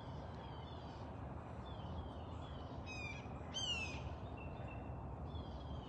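Wild birds calling: a scatter of short, downward-sliding chirps, with two louder, harsher calls a little over halfway through, over faint steady background noise.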